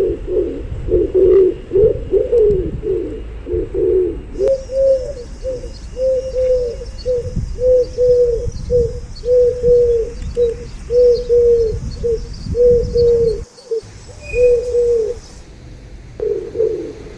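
Pigeons cooing. First a tangle of overlapping coos, then a run of short, evenly repeated coo notes about two a second, broken by a brief dropout near the end.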